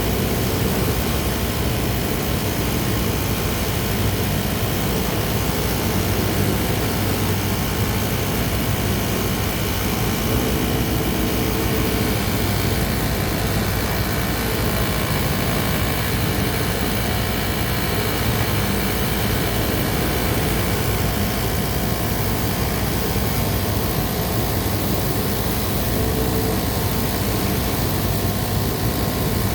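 Kansai Special industrial multi-needle sewing machine and its motor running steadily.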